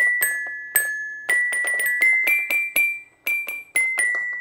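A child's non-electronic musical instrument ringing out a quick series of struck metallic notes, mostly the same high note with a slightly lower one now and then.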